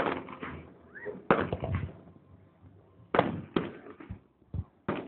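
Fireworks exploding: about six sharp bangs at irregular intervals, each with a short trailing echo.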